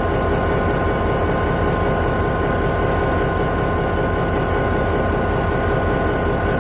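EMD SD40-2 diesel-electric locomotive idling up close: its turbocharged two-stroke V16 diesel runs with a steady, evenly pulsing low rumble and a constant high whine over it.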